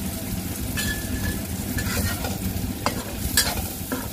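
Sliced shallots and garlic sizzling in a little oil in a wok while a metal spatula stirs them, scraping and knocking against the pan several times. The aromatics are being sautéed until fragrant.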